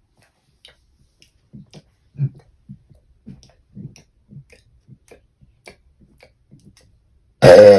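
A run of faint, irregular soft clicks and light thumps, roughly three a second, then about seven and a half seconds in a young woman's loud, sustained burp starts abruptly.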